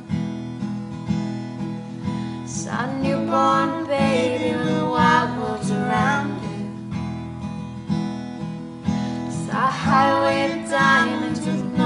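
Acoustic guitar strummed steadily, with singing voices over it in phrases, one starting about three seconds in and another near the end.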